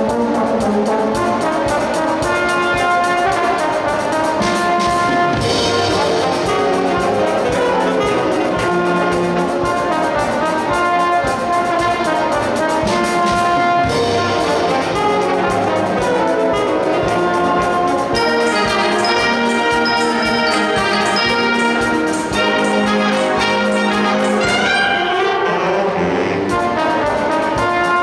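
School wind band playing, with trumpets and trombones carrying sustained melody notes over the full ensemble.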